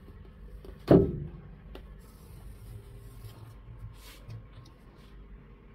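Glass-door cabinet door pushed shut against newly fitted silicone tape on its frame, one dull knock about a second in, followed by a few faint light clicks.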